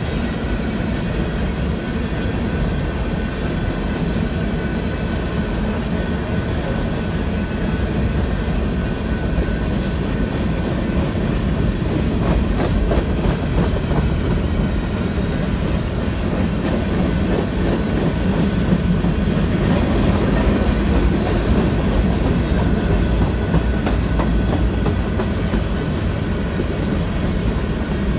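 Railroad cars of a passing train rolling by: a steady low rumble with clicks from the wheels on the rails, swelling slightly about two-thirds of the way through.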